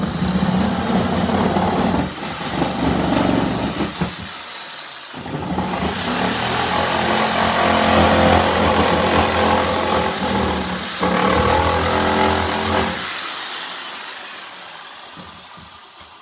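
A loud motor running in two stretches, about four seconds and then about eight, with a short break between; the second stretch fades away gradually near the end.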